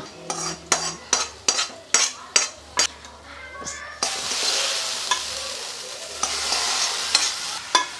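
A metal spoon scrapes and taps repeatedly against a small metal kadai as a hot tempering of shallots, curry leaves and dried chillies is scraped out. About four seconds in, a steady sizzle starts as the hot oil lands on the sambar rice, and a few more spoon taps come near the end.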